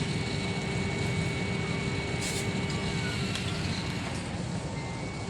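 Steady airliner cabin noise before takeoff: a low rumble from the engines and air-conditioning, with a faint steady whine over it.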